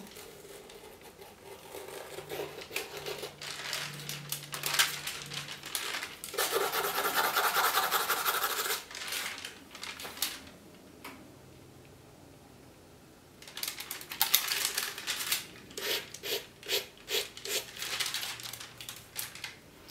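A needle point scratching thin lines across a sheet of paper laid over wet oil paint and cold wax, in runs of short scratchy strokes with a quiet pause midway. Near the end the paper rustles as it is lifted off.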